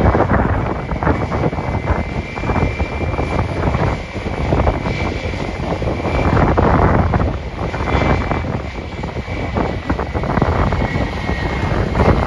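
Jet airliner engines running with a steady high whine, under strong gusty wind buffeting the microphone.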